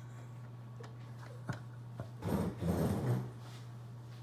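Handling noise from plastic graded-card slabs on a wooden table: a few sharp clicks, then a louder rubbing scrape lasting about a second, two seconds in, over a steady low hum.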